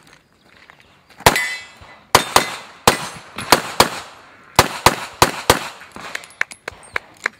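Semi-automatic pistol firing about ten rapid shots over some four seconds, mostly in quick pairs about a quarter second apart, starting about a second in; a few fainter clicks follow near the end.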